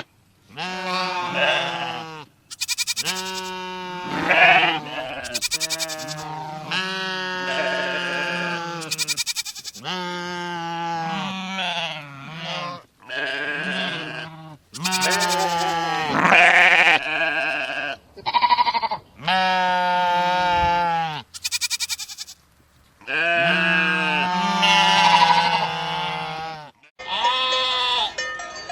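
Sheep bleating over and over, a long series of separate calls, each with a quavering pitch.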